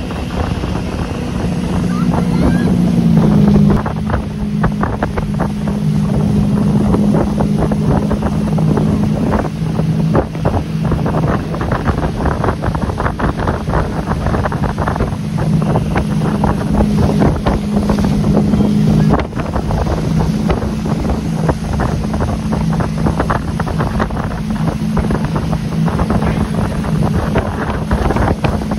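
Motorboat engine running steadily under way, its note shifting slightly about three seconds in, with wind buffeting the microphone and the wake churning behind the boat.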